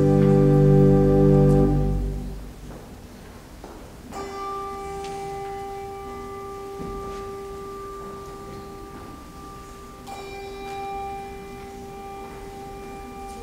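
A loud, held organ chord ends about two seconds in. A bell then tolls twice, about six seconds apart, each stroke ringing on at one steady pitch.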